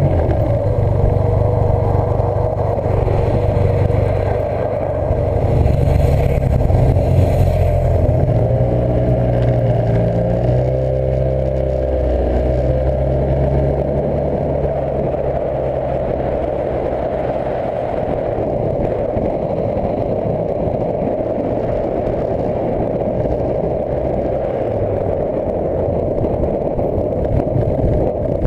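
Motorcycle engine running steadily while riding, with a wavering rise and fall in pitch between about 8 and 13 seconds in.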